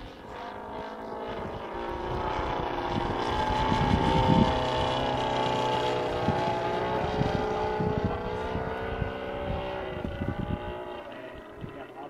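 Saito FG-19 R3 three-cylinder four-stroke radial engine of a radio-controlled Yak 3U model plane flying past at steady throttle. It grows louder to a peak about four seconds in, then fades away, with wind gusting on the microphone.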